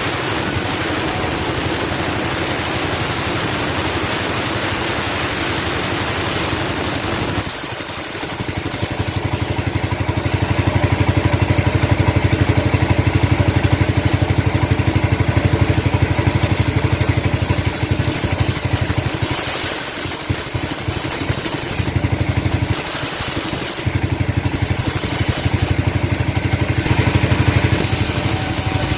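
Sawmill machinery running on an engine with a steady drone. About eight seconds in, the sound dips briefly and then comes back louder and fuller, with a fast low pulsing. It falls back for a moment twice later on.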